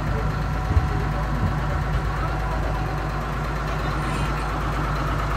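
Boat's diesel engine idling with a steady low throb, and a single sharp knock about a second in.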